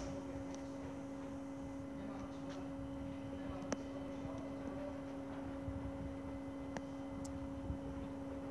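Steady hum with two clear tones, one low and one an octave above it, over a faint low rumble, with a few light clicks.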